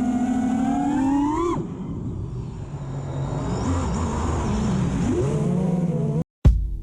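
FPV quadcopter's brushless motors whining, the pitch climbing with throttle for about a second and a half, then dropping and wavering lower under a rush of air. Just before the end it cuts off and music with a heavy beat starts.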